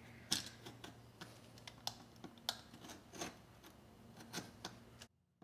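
Utility knife blade scoring a line in a wooden door jamb: a faint run of short, irregular clicks and scrapes, cutting off suddenly near the end.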